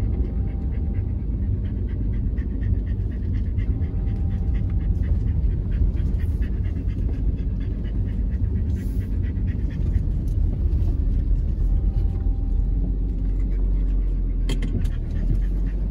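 A dog panting fast and steadily inside a moving car, over the car's steady low rumble of engine and road noise.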